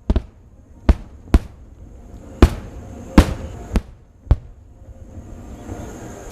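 Fireworks shells bursting: seven sharp bangs at uneven intervals over about four and a half seconds, then the bangs stop.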